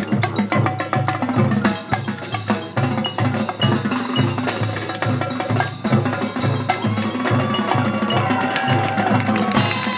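Marching band playing: a steady low pulse with sharp wood-block-like clicks and mallet percussion on top, joined by sustained held notes about seven seconds in.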